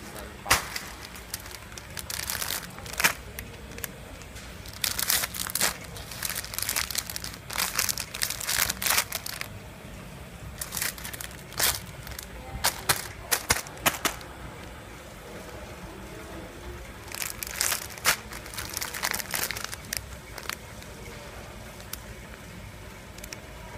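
Clear plastic bags of packed fresh rice noodles crinkling as they are handled, in several irregular bursts of crackling rustle, over a low steady hum.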